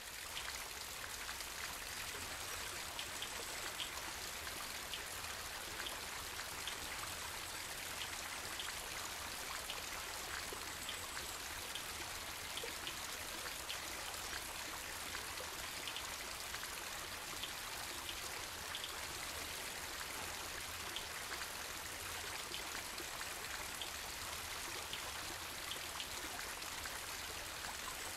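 Steady running and trickling water in a koi pond, dotted with small drips and splashes.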